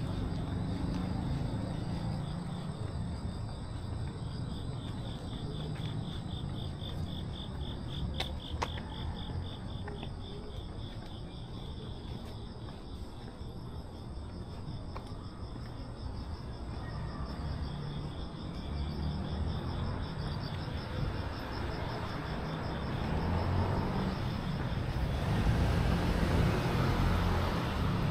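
Crickets chirping in a rapid, even pulse, over a low rumble of road traffic that grows louder near the end.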